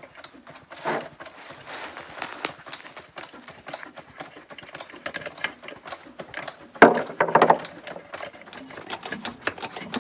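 Ratchet wrench clicking rapidly as the lug nuts on the tractor's rear wheel are worked loose, with one louder metallic clatter about seven seconds in.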